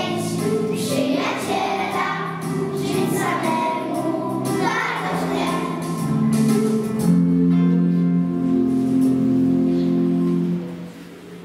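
A group of young children singing a song together. The song ends on long held notes, and the music stops shortly before the end.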